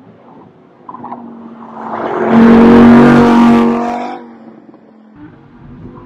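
2016 Audi R8 prototype's V10 engine passing close by on the track: the engine note swells over about two seconds, is loudest around the middle, then fades away.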